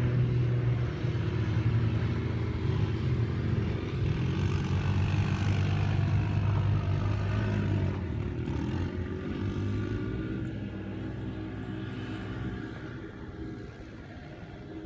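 Dirt bike engine running, its pitch shifting up and down with the throttle, growing fainter over the last several seconds.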